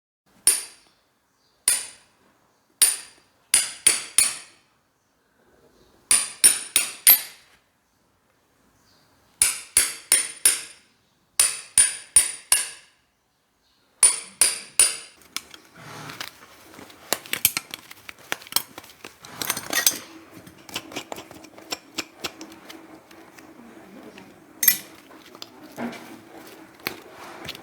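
Farrier's hammer striking steel with a bright ring, at first single blows and then quick runs of three or four. About halfway in the blows give way to lighter, scattered taps over background noise, and a low steady hum comes in later.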